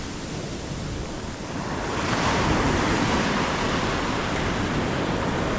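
Ocean surf washing on a sandy beach, swelling louder about two seconds in.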